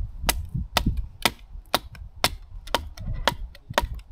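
Firewood being chopped: about eight sharp, even strikes on wood, roughly two a second.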